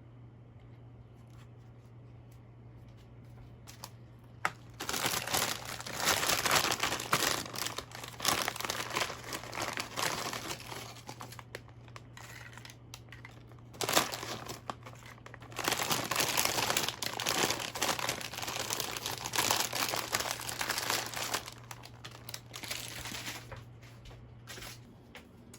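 Packaging crinkling and rustling as it is handled, in several spells with a sharp click partway through, over a low steady hum.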